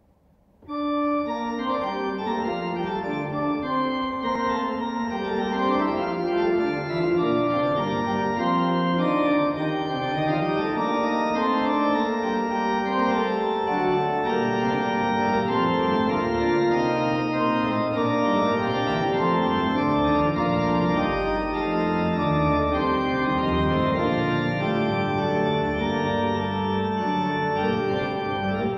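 Holtkamp pipe organ playing a 17th-century Italian keyboard sonata. Several lines of steady, held notes move in step, and deep bass notes join about two-thirds of the way through.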